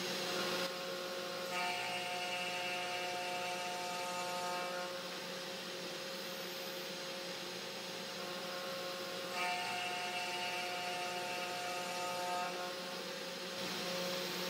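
3018 Pro Max desktop CNC router's spindle motor running steadily while a 2.5 mm two-flute cutter mills a square rod of acrylic. A higher whine of several tones comes in twice, for about three seconds each time, as the axis moves the cutter across the rod.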